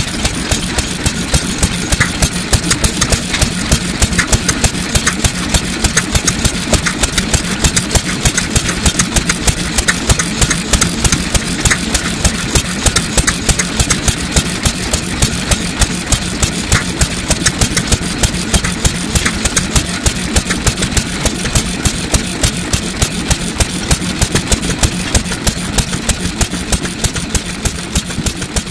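Syoki 3.5 hp single-cylinder kerosene stationary engine from about 1930, built by Takahashi Works, running steadily at low speed with an even, regular beat of firing strokes.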